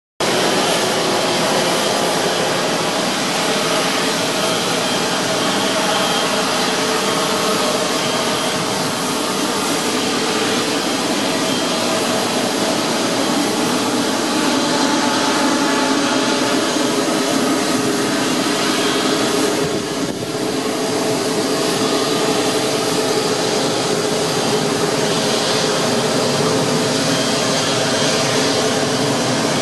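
Rolls-Royce Trent XWB turbofans of a taxiing Airbus A350-900: a steady jet whine and rush with a few held tones, dipping briefly about twenty seconds in.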